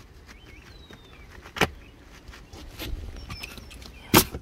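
Pneumatic coil roofing nailer driving nails through asphalt shingles: two sharp shots in quick succession near the end, after a single sharp click about a second and a half in.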